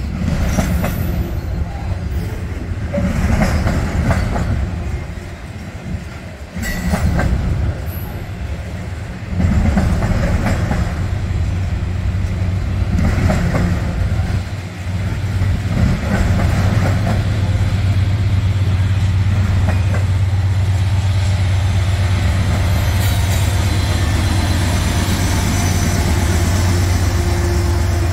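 A freight train's autorack cars rolling past, the wheels clacking over the rail joints as each set of trucks goes by, about every three seconds. Past the middle a mid-train diesel locomotive (distributed power unit) draws near, and its engine's steady low drone grows to dominate the wheel noise.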